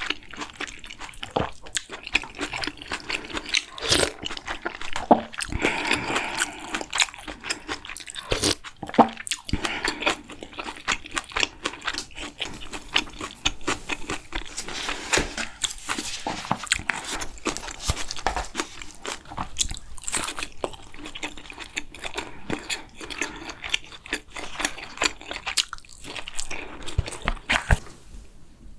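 Close-miked eating sounds: a person chewing and crunching mouthfuls of a Korean bibimbap and kimchi meal, with many short, sharp crunches and clicks throughout.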